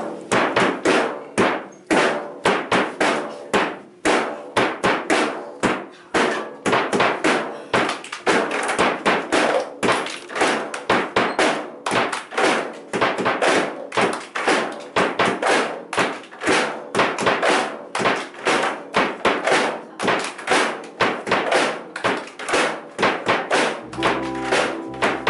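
A group of children clapping a steady rhythm together, about three claps a second, with duller thunks mixed in. An electric keyboard comes in with sustained chords about a second before the end.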